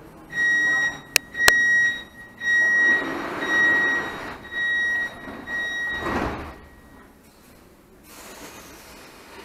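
Munich U-Bahn door-closing warning: an even, high beep repeated about once a second, seven times, signalling that the train's doors are about to shut. Two sharp clicks come between one and two seconds in, and a dull thud comes about six seconds in as the beeping ends.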